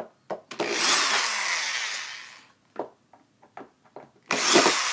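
Corded electric drill backing screws out of the amp panel on the back of a Mackie SRM450 powered speaker, running in two bursts of about two seconds each, the second starting near the end. Light clicks come just before the first run and in the gap between the two.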